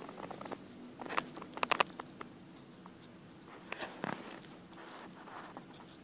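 Pet squirrel biting and chewing a piece of green apple: sharp, crisp clicks that come in small clusters, loudest in a quick run about a second and a half in, with more around four seconds.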